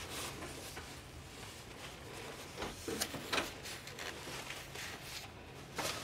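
Handling noises as a plate of food is moved about and set down: a few short knocks and rubbing sounds, clustered about halfway through, with another knock near the end.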